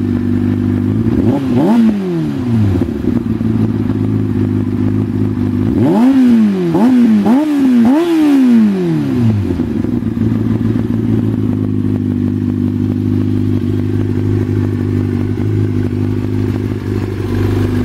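A 2004 Yamaha R6's 600 cc inline-four running through a GYT-R exhaust. It idles steadily, is blipped once about a second in, and is revved four times in quick succession around six to nine seconds in before settling back to idle.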